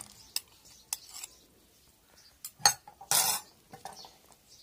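A spoon knocking and scraping against a bowl and the plastic blender jar as yogurt is spooned in: a few light clicks, and one short scrape about three seconds in.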